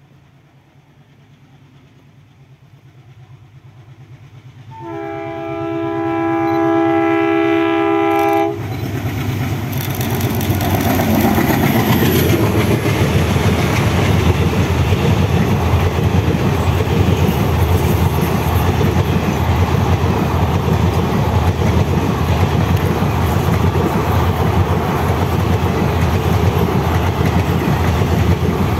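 WDM3A diesel-electric locomotive (ALCO 251 sixteen-cylinder engine) drawing near, its rumble growing. About five seconds in it sounds its horn, a held chord of about three and a half seconds that cuts off suddenly. Then its engine chugs loudly past with the train's wheels clattering over the rail joints.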